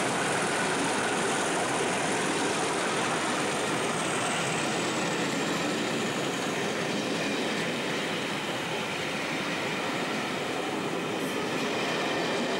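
Passenger train pulling away: coach wheels rolling on the rails, with a high whistle fading slowly in pitch over the first few seconds. Two Class 37 diesel-electric locomotives at the head are working hard; each has an English Electric 12CSVT V12 engine.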